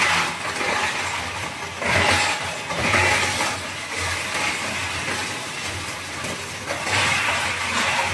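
Large industrial hammer-type bamboo crusher running under load, its alloy hammers breaking up bamboo. Over a steady low hum, the crushing noise swells three times, near 2 s, 3 s and 7 s.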